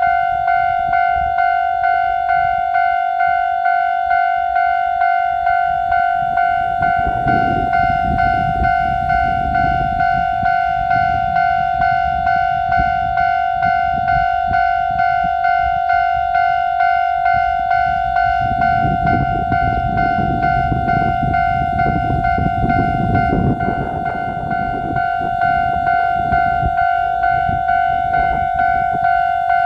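Japanese level-crossing warning bell ringing in a steady 'kan-kan' rhythm, a little more than one strike a second. Twice the low rumble of a Kotoden electric train running through the crossing rises under it, first about seven seconds in for a few seconds, then again about eighteen seconds in for about five seconds.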